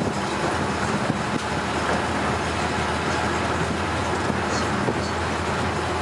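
Steady in-cabin noise of a moving vehicle: engine and tyre rumble while driving along a paved road.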